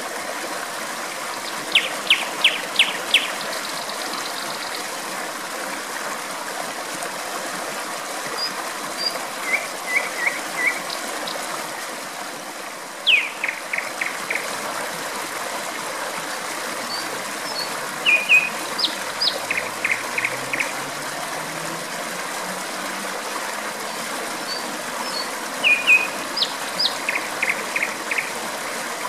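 Steady rush of flowing water, with a nightingale singing over it in several short phrases of fast repeated notes.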